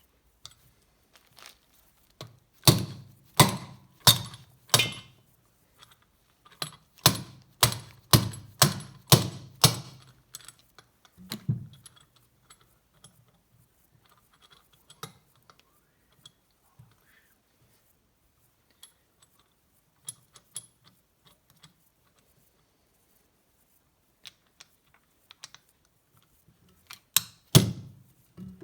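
Hammer tapping a piston pin into a Mercury Sport Jet engine piston: sharp metallic taps, about one and a half a second, first four, then after a short pause about six more, then a few more near the end. Small clicks of parts being handled come in between.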